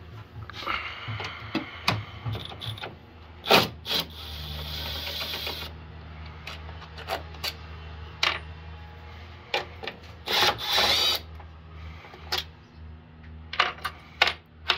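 Clicks, knocks and scraping of hand tools and parts being handled while engine-bay components are unfastened, with a low steady hum underneath.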